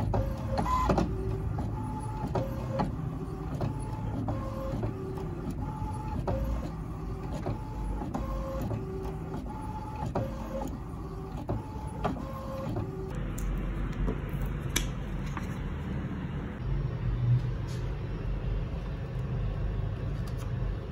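HP DeskJet Ink Advantage 5075 inkjet printer printing a page: the print-head carriage shuttles back and forth with a repeating pattern of short whirring motor tones and clicks as the paper feeds out. About 13 seconds in this gives way to a steadier low hum with a few sharp clicks.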